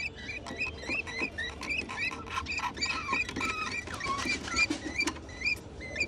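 Budgerigar chicks in the nest box giving rapid, repeated squeaky begging cheeps, about three a second, with light clicks and scratching among them.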